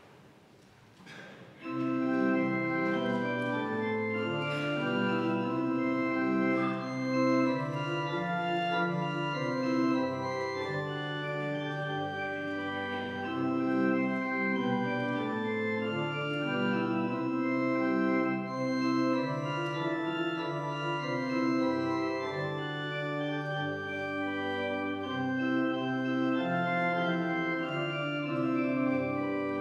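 Church pipe organ playing sustained chords over a low bass line. It enters about two seconds in and then carries on at a steady level.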